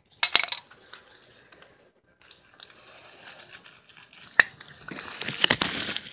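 Plastic sheet crinkling as gloved hands handle a brake caliper on it, with a few sharp metallic clicks. The crackling thickens near the end.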